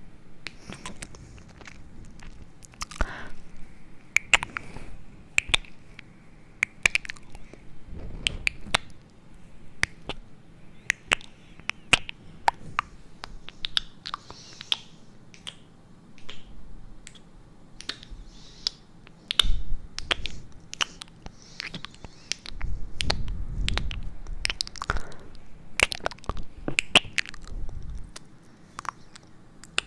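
Close-miked ASMR sounds: irregular sharp clicks and crackles, a few a second, over soft rustling, with a couple of low, muffled rumbles in the second half.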